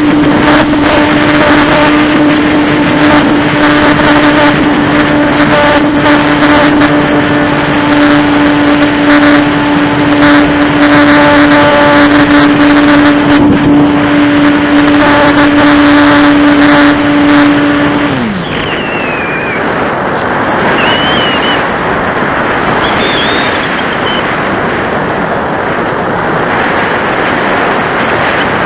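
Electric motor and propeller of a Top RC Lightning glider running at a steady high pitch under full power during the climb, then switched off about 18 seconds in, its pitch falling as it spins down. After that, wind rushing past the gliding model and its onboard camera.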